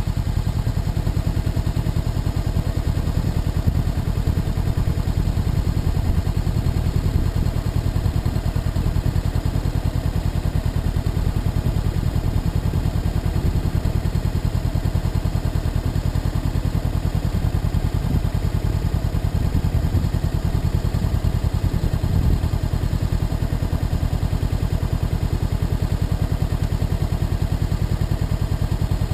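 Motorcycle engine running at steady cruising revs, with the rush of wind and road noise from riding at speed.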